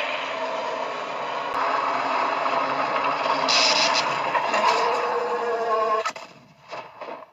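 A long, harsh, rasping sound effect of a monster fight, steady for about six seconds, then cutting off into a few short bursts.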